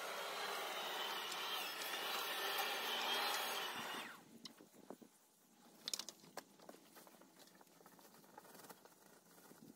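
Electric lawn mower running steadily as it cuts grass, then switching off about four seconds in. After that come scattered light rustles and clicks of cut grass being handled and bagged.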